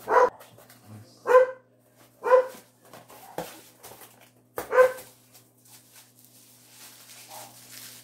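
A dog barking: four short, sharp barks spaced unevenly, the last about five seconds in, followed by faint rustling of cardboard and plastic packaging.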